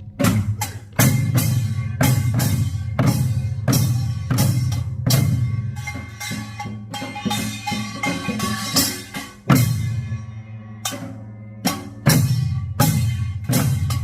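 Korean buk barrel drums beaten in a steady rhythm of sharp, loud strikes, with a steady ringing tone underneath.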